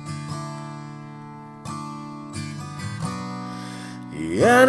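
Acoustic guitar playing slow, sparse chords, a few strums a second or so apart, each left ringing. About four seconds in, a voice comes in singing, louder than the guitar.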